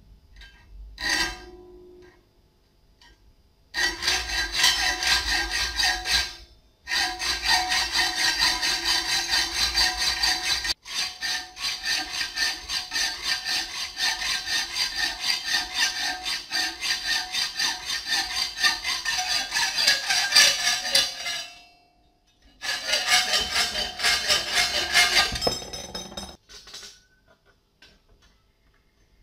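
Hand hacksaw cutting a ribbed steel reinforcing bar clamped in a bench vise: fast rasping back-and-forth strokes of the blade in three runs, about three seconds, fifteen seconds and three seconds long, with short pauses between. A brief metallic clank comes about a second in, before the sawing starts.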